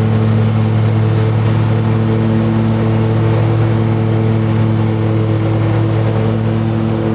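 Riding lawn mower's engine running at a steady, unchanging speed.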